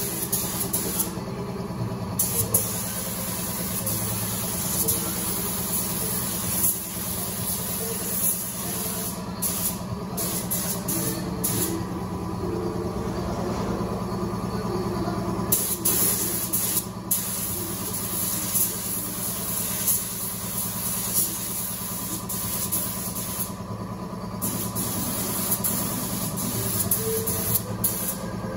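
Pneumatic paint spray gun hissing as it sprays paint onto a car body. The hiss stops for a moment several times as the trigger is let off, over a steady motor hum.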